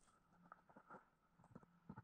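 Faint, scattered clicks and scuffs of a person handling a tent pitched on gravel, with his feet shifting on the stones.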